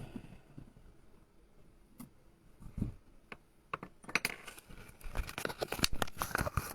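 A scatter of close clicks, taps and rustles, like something being handled, sparse at first and coming thick and fast from about four seconds in.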